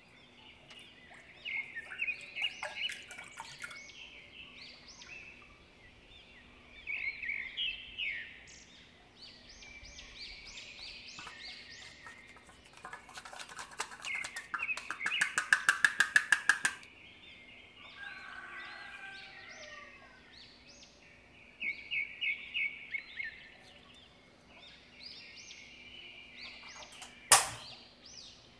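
Birds chirping in short repeated calls. About halfway through comes a fast, even run of knocks or rattles, about six a second, lasting some four seconds. Near the end there is one sharp click.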